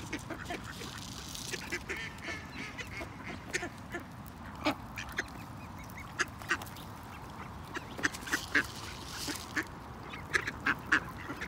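Mallard ducks quacking in short, scattered calls, coming more often near the end.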